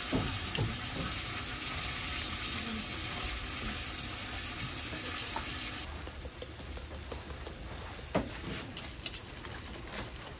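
Food sizzling in a hot pan, a steady hiss that cuts off abruptly about six seconds in, leaving a quieter stretch with a few light clicks and knocks.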